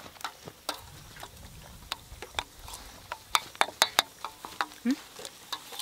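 Spatula stirring a thick spice paste in a steel bowl, knocking and scraping against the metal in a scatter of irregular clicks.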